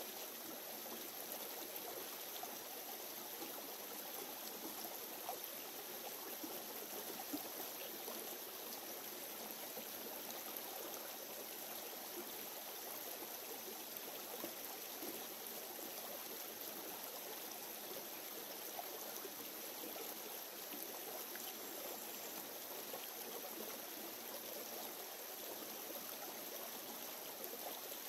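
Shallow, stony creek running steadily over rocks, with a few faint knocks.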